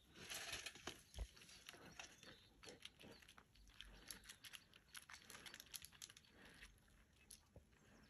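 Near silence, with faint scattered crackles and rustles and a slightly louder rustle in the first second.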